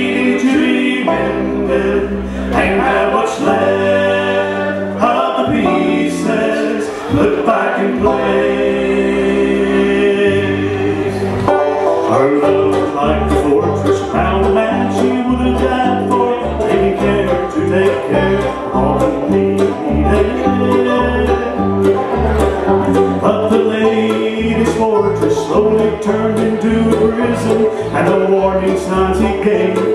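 A bluegrass band plays live on banjo, mandolin and acoustic guitar. Harmony singing runs over the picking in the first part, then gives way to an instrumental break with fast banjo picking.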